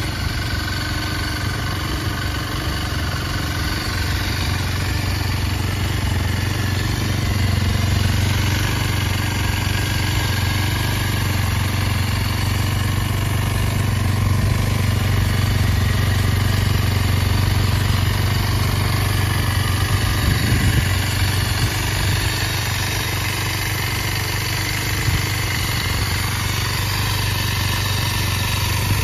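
Kawasaki KLX230S's air-cooled single-cylinder four-stroke engine idling steadily.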